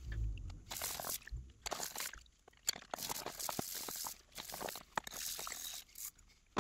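Old steel gouges handled in a plastic tub of rust remover: liquid sloshing and dripping, with short clinks of metal and scrubbing from a stiff brush.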